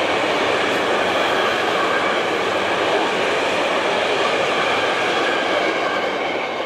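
Container freight train rolling past: a steady rumble of wagon wheels on the rails with a high ringing note over it. The sound begins to fade near the end as the last wagon goes by.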